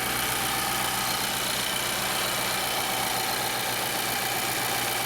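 Twin electric radiator cooling fans of a 2011 Infiniti M56 running together, a steady rush of air with a low hum, both switched on by the AC. The right fan is driven by a newly replaced fan control module.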